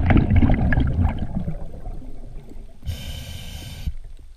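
Scuba diver breathing through a regulator underwater: a loud rush of exhaled bubbles that fades over the first second and a half, then a hissing breath in lasting about a second, about three seconds in.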